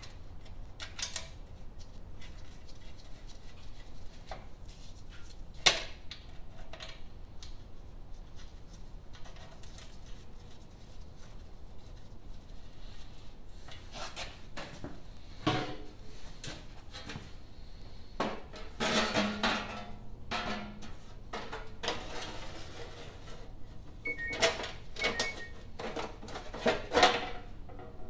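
Sheet-metal engine shroud being worked into place on a garden tractor's engine: scattered clanks and knocks, with a longer stretch of scraping and rattling about two-thirds of the way through and more knocks near the end.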